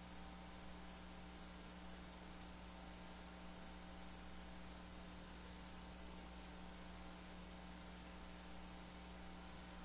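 Steady low electrical mains hum with a faint even hiss, and nothing else.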